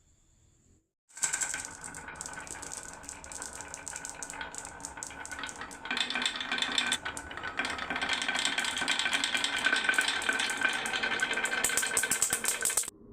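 Marbles rolling and clattering down a wooden marble run: a dense rattle of clicks that starts suddenly about a second in, gets louder about halfway through, and stops abruptly near the end.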